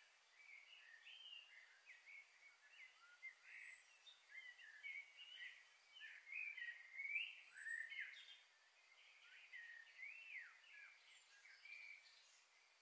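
Faint chirping and twittering of small birds: many short, quick calls in a continuous chatter, busiest around the middle.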